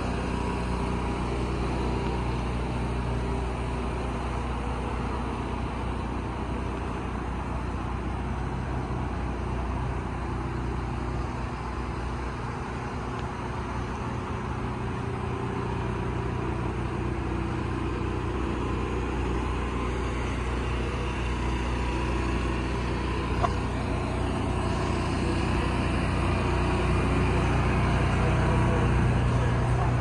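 Steady low hum of an idling engine. One short click comes about two-thirds of the way through, and the hum grows a little louder near the end.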